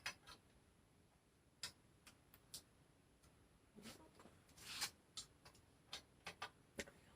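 Sparse light clicks and taps of small metal parts and tools being handled while bike handlebar components are taken off, with a short scrape about two-thirds of the way through.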